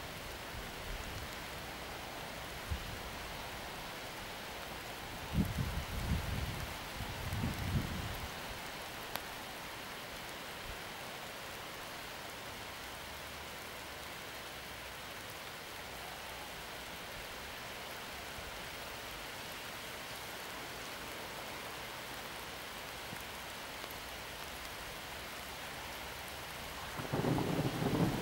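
Thunderstorm: steady rain hiss, with low rumbles of thunder about five to eight seconds in and a louder roll of thunder building near the end.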